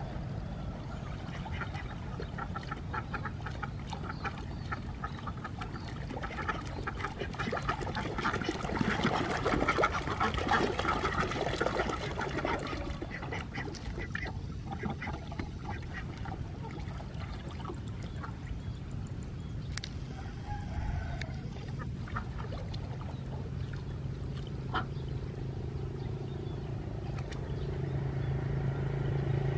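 A flock of domestic ducks quacking in a crowded chorus of short calls, busiest a third of the way in, as they swim in shallow water. Under them runs a steady low hum that grows louder near the end.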